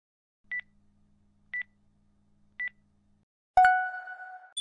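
Countdown timer sound: three short high beeps about a second apart, then a loud bell-like ding about three and a half seconds in that rings on, marking the end of the timed pose.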